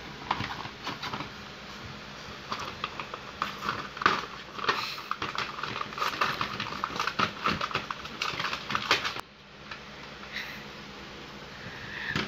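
Crackling and crinkling of a Hot Wheels package's clear plastic blister and card as it is handled and pried open, a quick run of irregular clicks that stops suddenly a little after nine seconds in.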